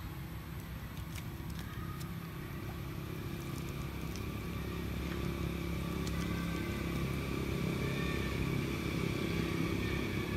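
A motor vehicle's engine running with a steady low hum, slowly getting louder.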